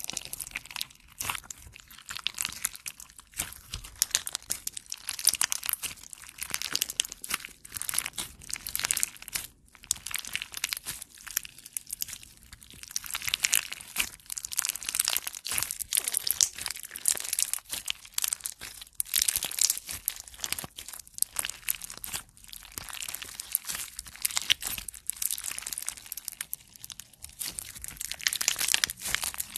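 Clear slime packed with small plastic duck charms being squeezed, kneaded and pulled apart by hand: a dense, continuous run of crackles, clicks and sticky pops.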